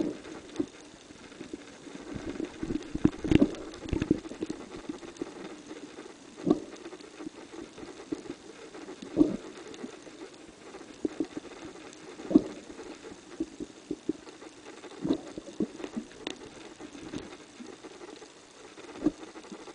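Underwater sound picked up by a submerged camera: a steady low wash of water with irregular dull knocks and clicks every few seconds.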